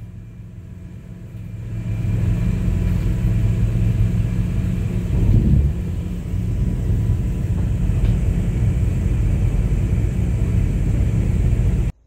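Low, steady rumble of a boat's engine under way. It grows louder about a second and a half in, swells briefly about five seconds in, and cuts off suddenly near the end.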